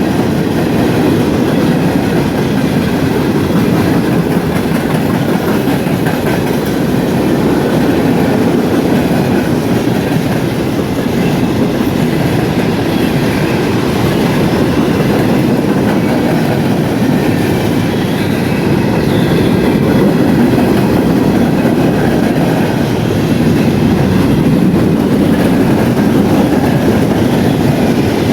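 Empty coal hopper cars of a freight train rolling past, their steel wheels running on the rails in a loud, steady, unbroken noise.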